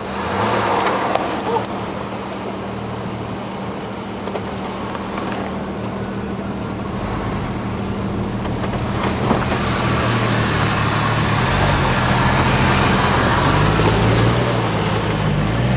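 Off-road Jeep engine running at low revs while crawling. It gets louder from about halfway, and the revs rise and fall several times near the end.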